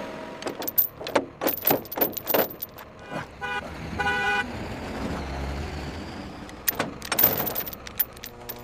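Vehicle horn giving two short toots in the middle, between two runs of sharp knocks and clatters, one near the start and one near the end.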